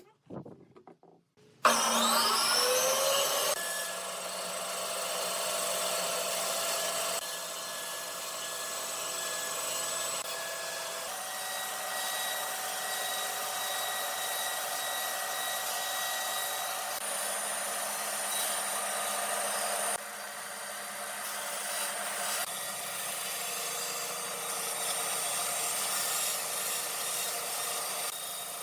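A few light clicks, then about two seconds in an electric power tool starts with a rising whine and runs steadily on wood. Its pitch and tone change abruptly several times.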